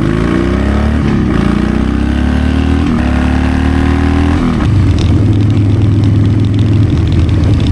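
Harley-Davidson V-twin motorcycle engine accelerating under way, its pitch climbing and resetting at about one and three seconds in as it shifts up through the gears. About four and a half seconds in the throttle closes and the engine settles to a steady, lower running note.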